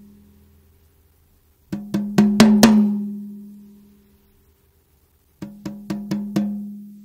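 Tom drum fitted with a Remo Controlled Sound Clear head (single-ply 10-mil film with a black dot) struck with a stick in two quick runs of about five strokes each. Each run rings out at one steady pitch and dies away over about a second.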